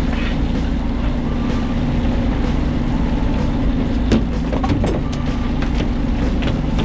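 Fishing boat's engine running steadily with a constant low hum, with a few short knocks, one sharper about four seconds in.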